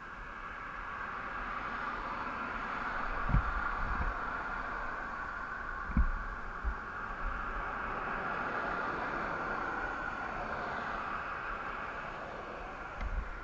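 Traffic rushing past on the highway, a broad noise that swells over the first few seconds and fades near the end. A few dull low thumps come about three and six seconds in and again at the end, from the camera or bike being bumped.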